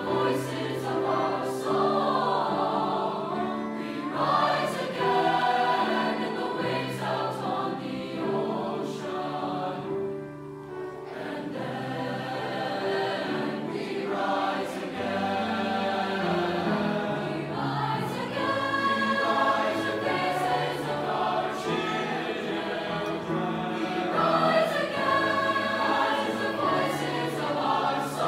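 Large mixed high school choir singing in harmony, with a brief softer passage about ten seconds in.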